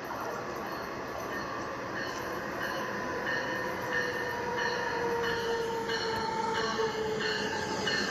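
Battery-powered LEGO passenger train approaching on plastic track: a steady motor whine that sags slightly in pitch, with regular clicks of the wheels over the track joints, growing louder as it nears.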